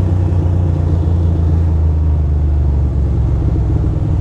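2006 Ducati Monster 620's air-cooled V-twin engine running steadily under way, a deep, even rumble.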